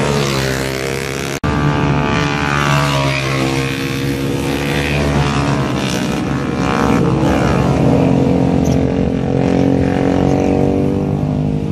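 Several small motorcycle engines revving through a hairpin curve, their pitch rising and falling in sweeps as the riders pass. The sound breaks off abruptly for an instant about a second and a half in.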